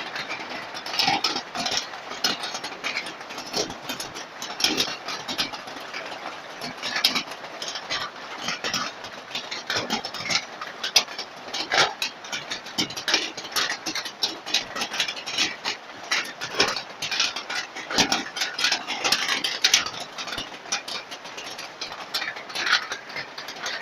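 Hailstones pelting hard surfaces: a dense, irregular clatter of many sharp impacts over a steady rushing hiss.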